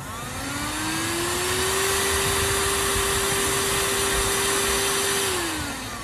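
Shark UltraCyclone Pro cordless handheld vacuum switched on: its motor spins up with a rising whine, then runs steadily with a rush of air. Near the end it is switched off and winds down.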